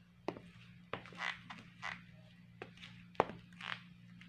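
Bandolino black block-heel sandals squeaking with each step. Sharp heel taps on a tile floor alternate with short squeaks from the shoes, over about five steps. The squeak is an unwanted defect in the new shoes.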